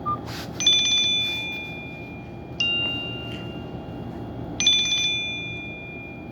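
A Nokia X2-00 ringtone played through a Nokia 130 phone's small loudspeaker: two bell-like chime notes alternating, one struck about every two seconds, each ringing on and fading away. A short beep sounds right at the start.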